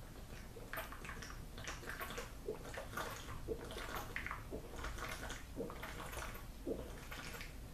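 A person gulping down a drink from a shaker bottle, the liquid sloshing as they swallow about once a second.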